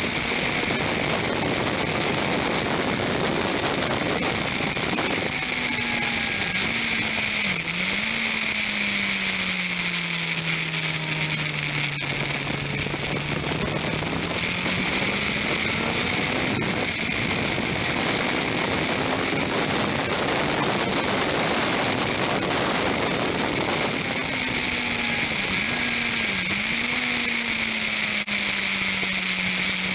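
Onboard sound of a Yamaha R1 inline-four motorcycle engine running at part throttle, its note sinking slowly, then rising again, with a pair of quick dips in pitch twice: gear changes and throttle blips. Heavy steady wind hiss over the camera.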